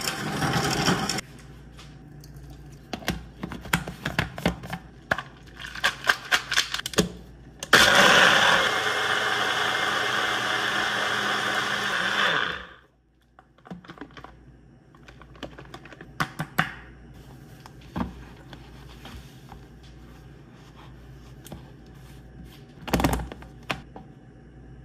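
Clatter of kitchen utensils and containers, then an electric blender runs steadily for about five seconds and stops abruptly, followed by a few light knocks.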